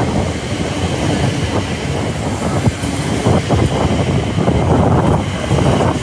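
Elizabeth line Class 345 electric multiple unit running alongside the platform as it pulls in, its wheels clattering over the rail joints in a steady dense rumble.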